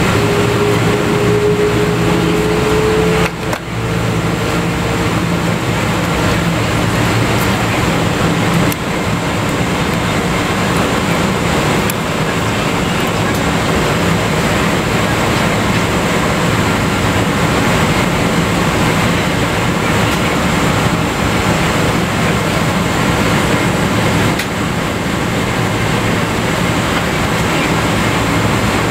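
Cabin noise inside a Boeing 777-200ER taxiing on idle engines: a steady hiss over a low engine hum. A faint tone rises slightly over the first few seconds and then fades, and the level dips briefly about three and a half seconds in.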